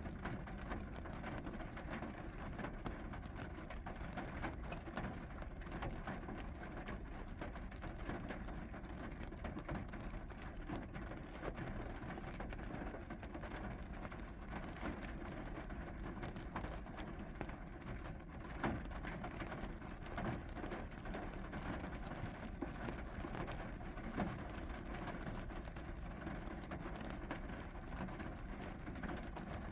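Rain falling steadily, with many small drops tapping irregularly through the steady hiss.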